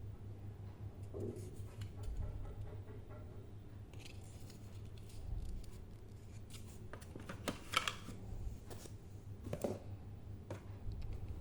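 Hands handling a smartphone and its packaging: scattered small clicks, rustles and scrapes, the loudest a brief scrape about eight seconds in, over a steady low hum.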